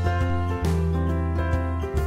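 Background music: sustained chords over a deep bass, changing to a new chord about a third of the way in and again near the end.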